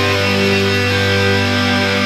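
Music: a guitar-led rock track with held, sustained chords.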